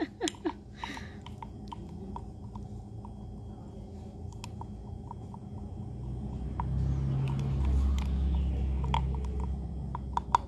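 A small metal spoon stirring thick lemon icing in a glass jar, clinking and scraping against the glass at irregular intervals. A low rumble rises a few seconds past the middle and fades before the end.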